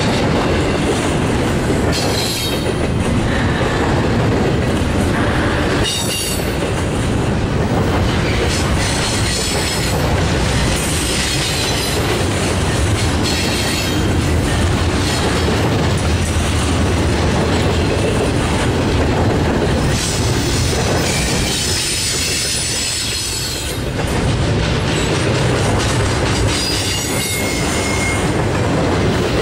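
Double-stack container well cars of a Norfolk Southern intermodal freight train rolling past at close range: a steady loud rumble of steel wheels on rail, with high-pitched wheel squeals coming and going several times.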